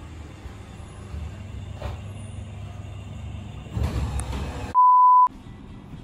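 Low steady rumble of an elevator running, with a louder stretch of noise a little before four seconds in. Then comes a single steady beep about half a second long, and all other sound cuts out beneath it.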